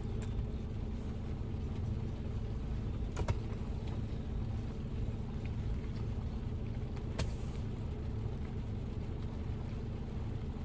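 Steady low hum of a parked car's idling engine, heard inside the cabin, with a couple of small clicks about three and seven seconds in.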